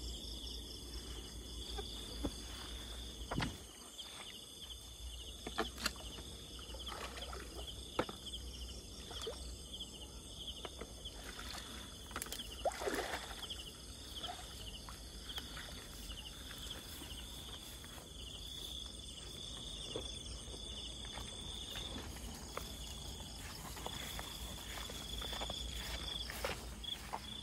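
Night insects chirping steadily in a high pulsing drone, with scattered splashes and knocks from a fish trap being lifted from ditch water and the catch handled in a plastic bucket.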